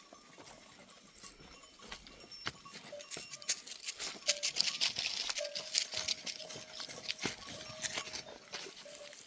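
Hooves of a moving flock of sheep and goats pattering and clicking over the ground, growing busier from about three seconds in and easing off near the end.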